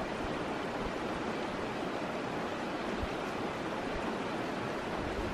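A stream rushing steadily.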